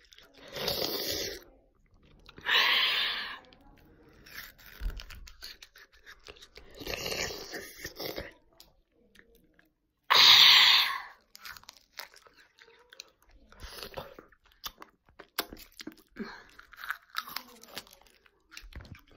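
Close-up mouth sounds of someone biting and chewing food right at the microphone: four louder bursts of about a second each, the loudest about ten seconds in, with fainter smacks and clicks between.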